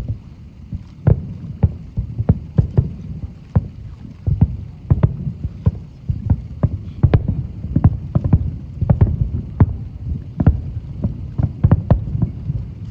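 Fireworks shells bursting over the lake in a rapid, irregular barrage of booms, at times several a second, over a continuous low rumble of overlapping explosions.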